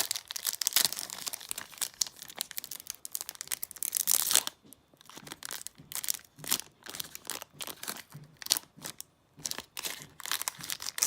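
Foil Yu-Gi-Oh booster pack wrapper crinkling and tearing open for about four and a half seconds, followed by a run of short, crisp rustles and clicks as the trading cards are drawn out and handled.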